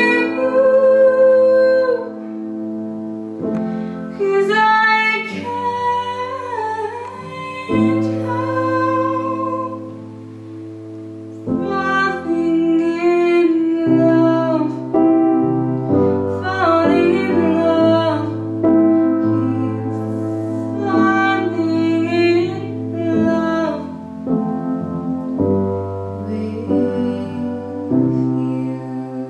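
A young woman singing a slow love song to her own grand piano accompaniment, holding long notes over sustained piano chords.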